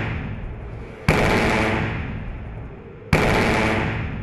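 Two heavy booming impacts, about a second and three seconds in, each hitting suddenly and dying away slowly with a low ringing tone; the tail of an earlier boom fades out at the start.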